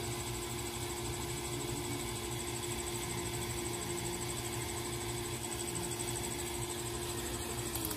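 Small homemade DC cooler fan running with a steady hum and a hiss of air; near the end the hum drops in pitch as the fan slows.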